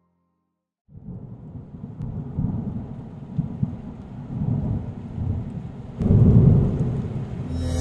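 Thunderstorm sound effect: a low rolling rumble of thunder over a rain-like hiss, starting abruptly about a second in and swelling louder about six seconds in.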